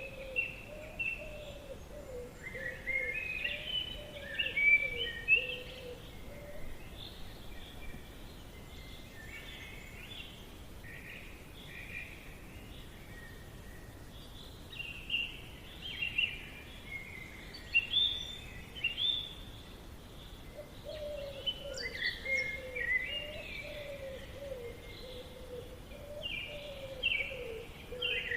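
Forest birdsong: several birds chirping and trilling in short overlapping phrases throughout, with a lower, wavering series of calls in the first few seconds and again in the last third.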